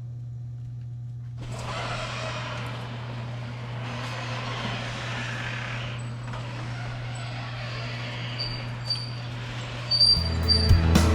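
A roll-up shop door coming down: a steady rush of noise for about eight seconds over a low steady hum. Music comes in loudly near the end.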